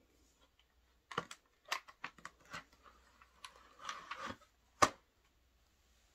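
Plastic clicks and rattles of a Scorpion EXO-Tech modular helmet's chin bar being unlatched and swung up and back over the shell, ending in one loud, sharp snap.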